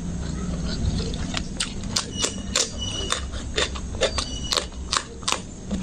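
Close-miked chewing of a mouthful of rice and curry: a run of sharp, irregular wet mouth clicks and smacks, with a bite into a raw green chili about four seconds in. A steady low hum runs underneath.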